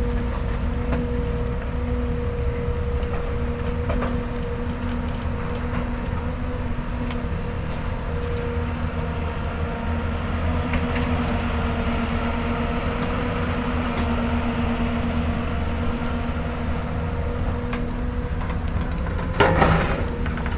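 Hyundai Robex 220-9S excavator's diesel engine running steadily with a low rumble. A louder, rough noise lasts about a second near the end.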